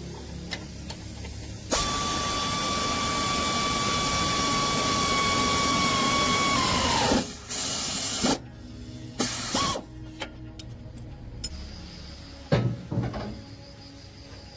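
An electric power tool runs steadily for about five seconds, then its motor is released and spins down with a falling whine. It is followed by several separate metallic knocks and clinks of parts being handled.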